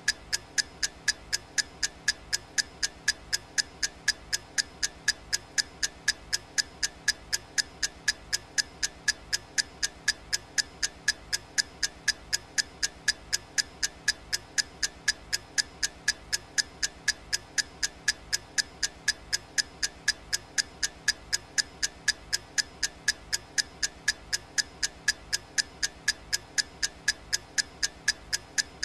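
Clock ticking sound effect of a countdown timer: crisp, evenly spaced ticks at about three a second, steady throughout.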